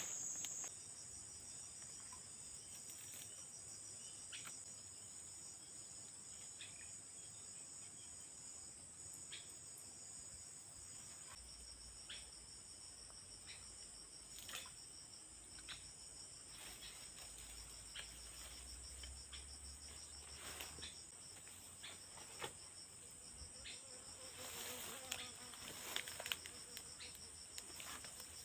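Steady high-pitched chorus of crickets or similar insects, with scattered small clicks and taps through it.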